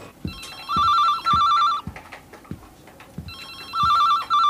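Electronic desk telephone ringing in the double-ring pattern: two rings, each a pair of short warbling trills, about three seconds apart.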